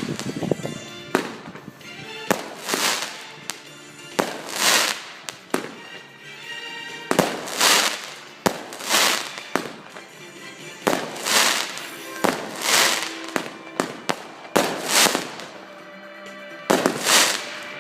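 Fireworks display: a rapid run of shells bursting, about twenty in all, each a sharp bang swelling into a brief hissing crackle, often in pairs a fraction of a second apart. Music plays steadily underneath.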